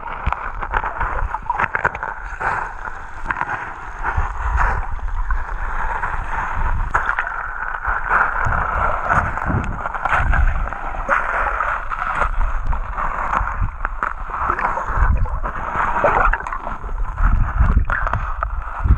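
Seawater moving around a GoPro Session held underwater: a steady muffled wash with frequent low surges and small clicks.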